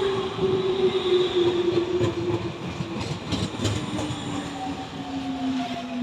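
Tobu Tojo Line electric train pulling in, its traction motors humming in a tone that falls steadily in pitch as it slows, with a few wheel clicks over rail joints partway through.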